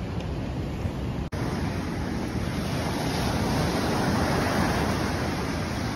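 Ocean surf washing and breaking on the shore, with wind on the microphone; the sound shifts abruptly a little over a second in and is fuller and louder after.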